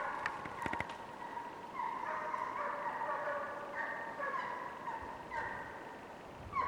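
Hunting hounds giving tongue on a hare's trail: a string of long, wavering, high calls heard from afar, with two voices overlapping in the middle.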